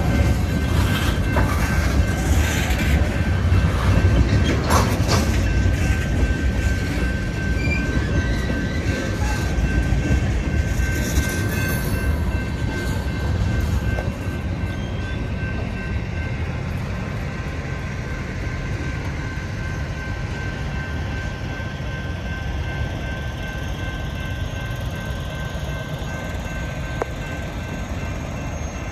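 Freight train tank cars rolling over a grade crossing: a low rumble with wheel clicks and clanks, easing off about halfway through as the last cars go by. A steady ringing from the crossing signal bell sounds throughout.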